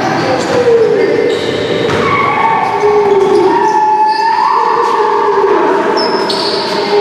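Pickup basketball game on a hardwood gym floor: the ball bouncing and thudding on the court in an echoing hall. Long held tones that slide up and down run through it.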